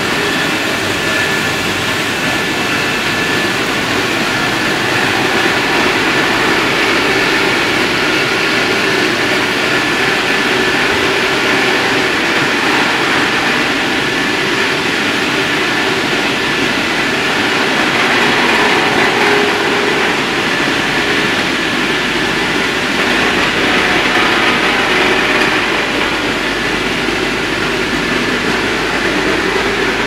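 Red-date (jujube) washing and air-drying line running steadily: water spraying from the washer's spray bars and motor-driven centrifugal blower fans blowing air over the conveyor. It makes a continuous loud noise with a few faint steady whining tones over it.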